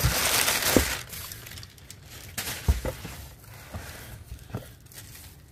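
Brown kraft packing paper rustling and crumpling as it is pulled out of a cardboard box, loudest in the first second. A few light knocks and crinkles follow as a shrink-wrapped box is lifted out.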